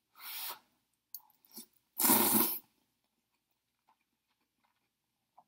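A person slurping instant noodles off a fork: a short slurp near the start and a louder one about two seconds in, followed by faint mouth clicks.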